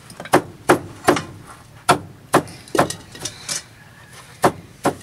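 Knife chopping on a wooden cutting board: about ten sharp strokes at an uneven pace.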